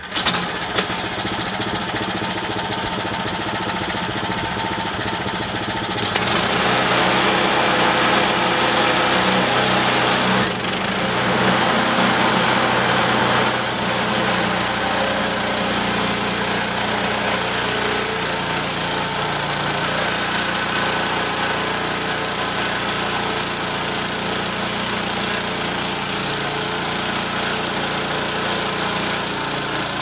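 Wood-Mizer LT10 portable bandsaw mill's small gas engine starts up at the beginning and runs steadily. About six seconds in it gets louder as it is throttled up and the band blade is engaged. The blade then saws along a log.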